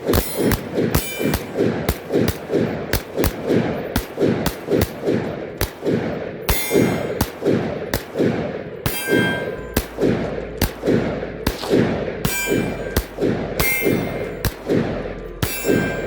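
Pistols fired steadily at steel targets, about two shots a second, with many hits ringing off the steel.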